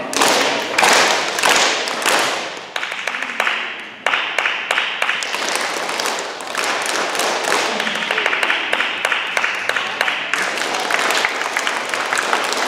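A group of children clapping their hands, many quick claps overlapping, which thin out briefly about four seconds in.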